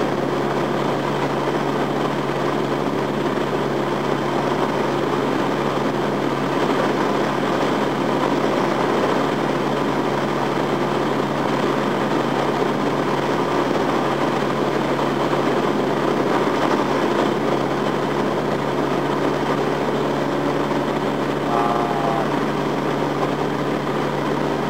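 Piston engine and propeller of a single-engine light plane in steady cruise, heard inside the cockpit as an even drone with a constant low hum.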